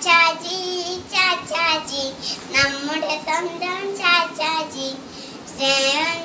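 A young girl singing solo without accompaniment, in short phrases with brief pauses between them.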